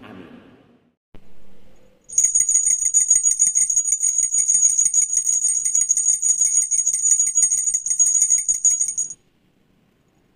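Small bells shaken rapidly: a dense, continuous jingling with steady high ringing tones, which starts about two seconds in, lasts about seven seconds and stops abruptly. A brief low sound comes just before it.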